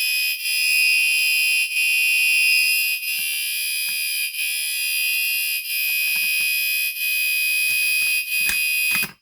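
Gentex Commander 3 fire alarm horn sounding continuously after its pull station is pulled, a loud, buzzing, high-pitched horn tone that cuts off suddenly about nine seconds in.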